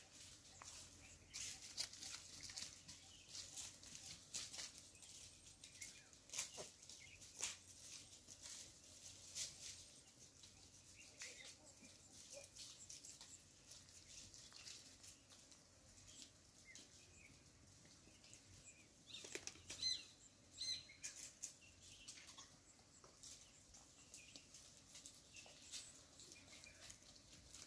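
Faint scattered clicks and rustles from a herd of goats moving about, some of them climbing in a tree, with two short high chirps about twenty seconds in.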